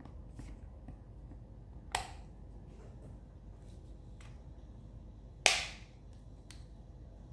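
Two sharp plastic snaps, the second louder, with faint small clicks between them: the Byrna Pro Fiber top cover being slid and snapped onto a Byrna LE launcher.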